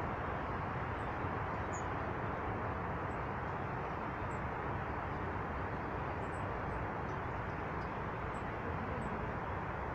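Small birds giving short, high-pitched chips, roughly one a second, over a steady rushing background noise.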